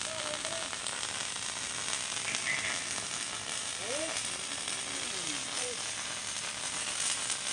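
Electric arc welding: a steady crackling sizzle from the welding arc, with faint voices briefly about halfway through.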